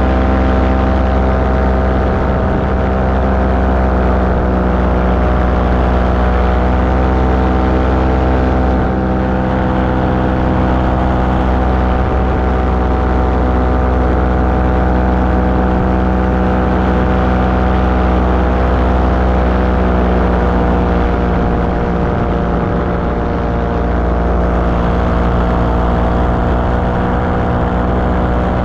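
Light aircraft engine and propeller running at steady cruise power in flight, a constant even drone.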